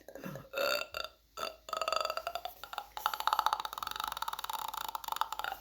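A person burping: a few short burps, then one long drawn-out, rattling burp of about four seconds that stops just before the end.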